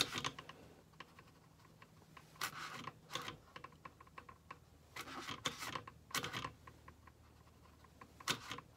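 Watercolour brush working on paper: a handful of short, scratchy rustles with small clicks between them, over a faint low hum.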